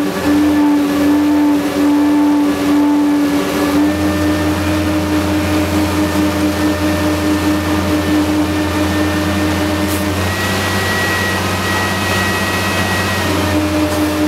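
Menck M260 cable dragline's engine and drive running steadily under load, heard inside the operator's cab as a low hum with a steady whine. The whine shifts in pitch a few times as the bucket is hoisted and swung to dump.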